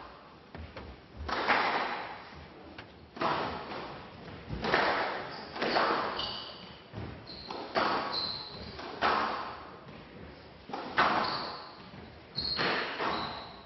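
Squash rally: the ball being struck and smacking off the court walls about every second and a half, each hit echoing briefly, with short high squeaks of shoes on the court floor.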